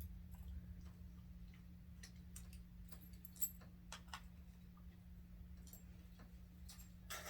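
Faint, irregular light clicks and ticks, one sharper about three and a half seconds in, over a steady low hum.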